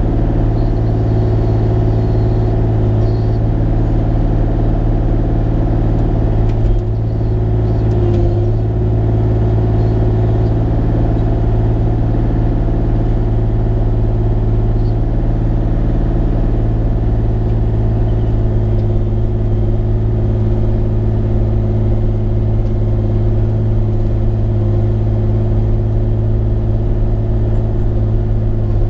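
Bobcat E35 mini excavator's diesel engine running steadily at working speed, with a short knock about seven seconds in.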